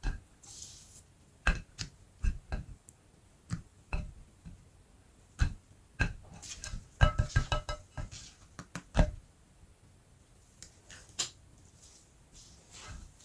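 Irregular sharp taps, clicks and knocks of objects being handled and set down, with a short ringing clink about seven seconds in.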